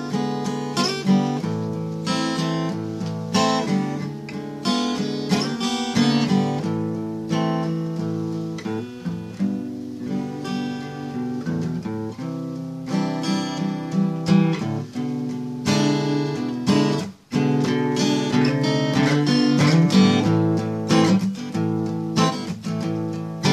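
Acoustic guitar music, picked and strummed chords, with a brief break about two thirds of the way through.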